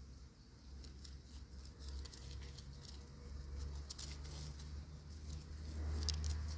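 A kitten's paws pattering and rustling in dry leaves and grass as it pounces on and bats at a caught mouse, a run of short high ticks that grows busier about four seconds in and again near six seconds.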